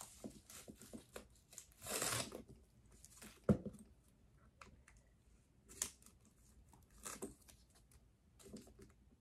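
Protective wrapping on a new handbag's handle crinkling and tearing, with a louder rip about two seconds in. A sharp click comes a second and a half later, followed by a few small clicks.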